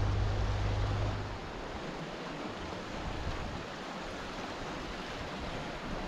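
Steady outdoor rushing noise, with a low steady hum underneath that cuts off about a second and a half in.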